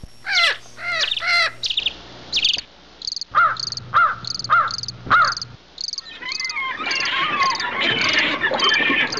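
Birds calling over a regular high pulsed chirp that repeats about twice a second. A few loud arched whistles sound in the first half, then from about six seconds a dense chatter of many birds.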